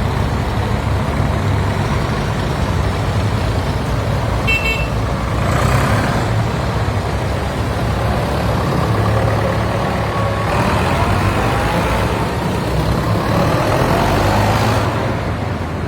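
Tractor engines running with a steady low rumble. There is a short high toot about four and a half seconds in, and an engine note rises gradually in pitch in the second half.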